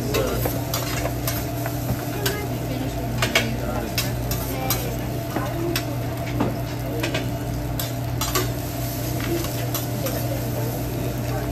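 Metal spatula and scraper clacking and scraping on a steel hibachi griddle as fried rice is stirred and chopped, with irregular sharp clicks over the rice sizzling. A steady low hum runs underneath.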